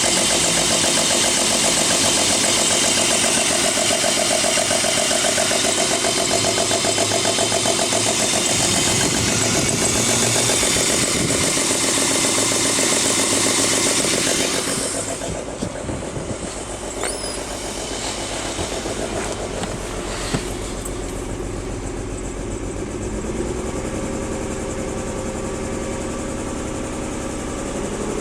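BMW 325i (E36) inline-six engine idling roughly shortly after a cold start, the misfire-like unevenness the owner is chasing. The sound drops noticeably in loudness and hiss about halfway through, then carries on idling steadily.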